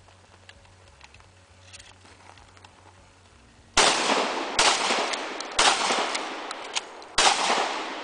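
Four gunshots from a long gun, the first nearly four seconds in and the rest about a second apart, each followed by a trailing echo.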